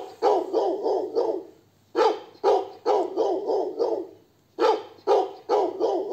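Recorded dog barking played through the small speaker of a De Agostini 'Le storie sonore della fattoria' toy sound base, triggered by setting the dog figurine on its animal-call slot. It comes in runs of quick barks, with a new run starting about every two and a half seconds.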